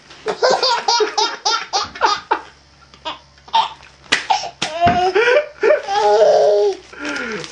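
A baby laughing hard in rapid bursts of giggles and belly laughs, with a short lull in the middle and a longer drawn-out laugh near the end.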